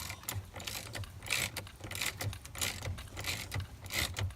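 Hand socket ratchet clicking in repeated swings, a few strokes a second, as the steering-wheel centre bolt is run down.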